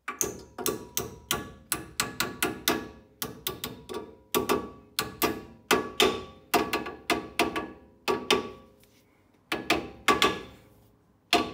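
A small hammer lightly tapping a new steel abutment clip onto a brake caliper bracket to seat it. It makes quick metallic taps, about three a second, each with a short ring, pauses briefly about eight seconds in, then gives a few more taps.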